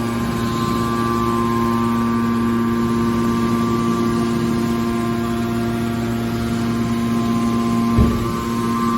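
Hydraulic can baler's electric motor and pump running with a steady hum, a single clunk about eight seconds in, after which a higher tone in the hum drops out.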